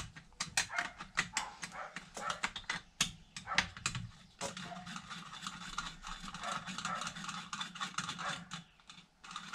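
Irregular metallic clicks, taps and clinks of a hand tool and loose bolts against a partly dismantled Husqvarna 340 chainsaw as its cylinder bolts are undone. A low steady hum runs for a few seconds in the middle.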